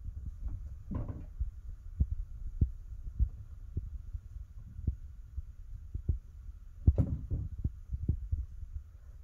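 Muffled thuds and knocks from the floor above, irregular, about one or two a second, with two louder clattering knocks about a second in and about seven seconds in, over a steady low hum.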